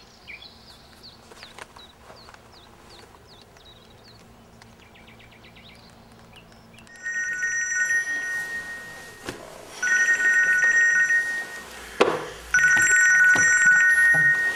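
A telephone ringing three times, each ring a steady two-tone trill of about one and a half to two seconds, starting about halfway through. Just before the third ring there is a single sharp knock. In the first half there are only faint bird chirps.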